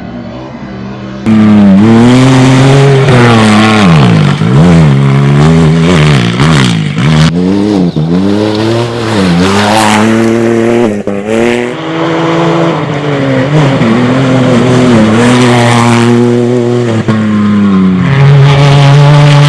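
Rally-raid competition vehicle's engine at full throttle. It runs steady and quieter for the first second, then becomes much louder, with the revs climbing and dropping again and again as the vehicle accelerates, shifts and lifts off.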